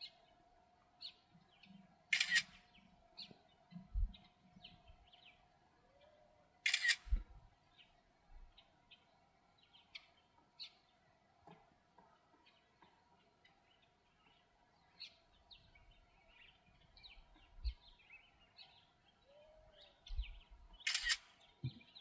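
A camera shutter firing three times, about 2 seconds in, 7 seconds in and near the end, over frequent faint chirps of small birds.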